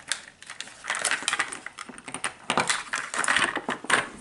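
Hands opening a Mighty Beanz toy pack: the plastic packaging and a foil-paper wrapper crinkling and rustling, with irregular light plastic clicks, busiest in the second half.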